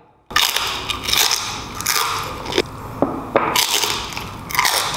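A person biting into and chewing food close to the microphone, in mukbang style, with loud noisy bursts of mouth and food sounds about once a second. It begins after a brief silence.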